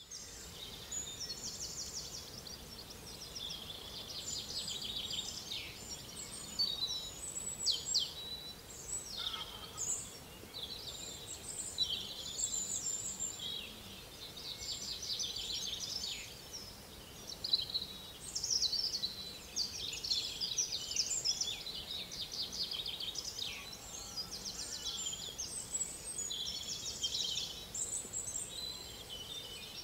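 Several songbirds singing at once in a dawn chorus, with many overlapping high chirps and quick trills.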